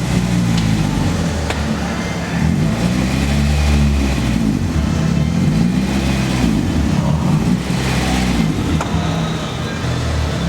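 Car engine running, its revs rising and falling smoothly several times as the car is driven and manoeuvred.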